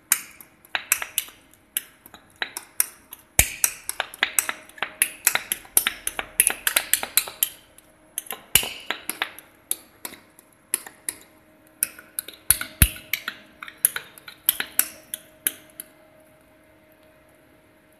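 The metal blade of a hand scraper clicking and scraping against the turning chrome-plated steel roll of a lab two-roll mill as the melted polypropylene sheet is cut and turned on the roll. It is a rapid, uneven run of sharp metallic clicks, a few a second, that stops about 16 s in. Under it the mill's drive runs with a faint steady hum.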